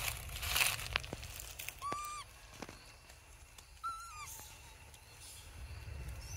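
Young macaque giving two short, clear coo calls about two seconds apart, each a brief steady whistle-like note. A short rustle comes just before the first call.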